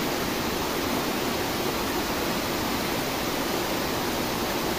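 Small waterfall pouring steadily over rocks.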